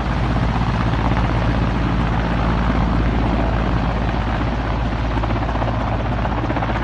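Helicopter running close by, a loud steady rush of engine and rotor noise with a rapid, even blade chop.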